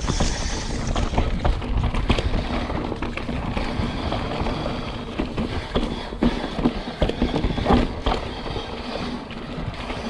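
Mountain bike rolling fast down a dirt trail: the tyres run over the dirt, and the bike rattles with sharp knocks over bumps.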